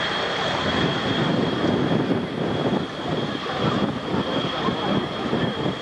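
Boeing F/A-18 Hornet jet engines running steadily at low power, a dense rumbling noise with a steady high whine over it.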